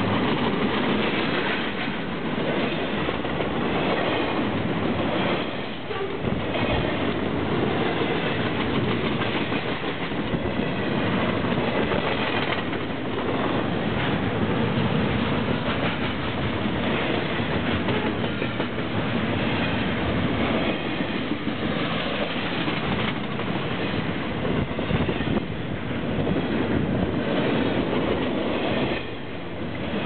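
Double-stack intermodal container cars of a CSX freight train rolling past close by: a steady, loud rumble and rattle of steel wheels on the rails, dipping briefly near the end.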